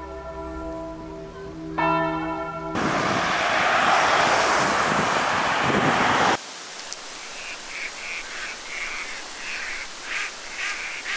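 Church bell ringing, struck again about two seconds in. It gives way to a loud, even rushing noise for about four seconds, then to a quieter stretch with a run of short, high repeated calls.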